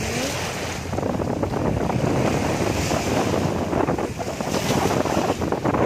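Wind buffeting the camera microphone: a steady, uneven rumbling rush.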